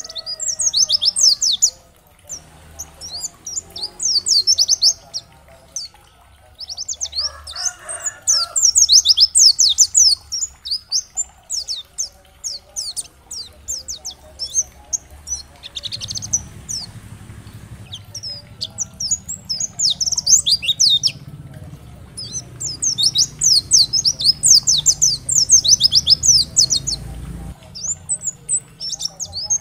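Pleci (white-eye) singing in loud bursts of rapid, high-pitched twittering, each burst a few seconds long with short pauses between. A low hum runs underneath from about halfway until shortly before the end.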